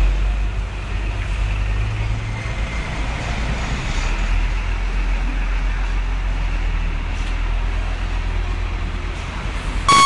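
Fire engine and road traffic: a steady low rumble of heavy engines and tyres on the road.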